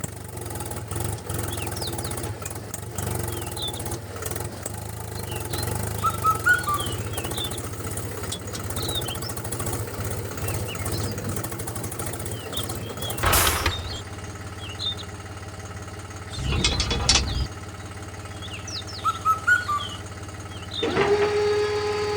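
Small motor of a DIY miniature tractor model running with a steady low hum, with birds chirping throughout. There are two short noisy bursts partway through, and a higher steady whine sets in near the end.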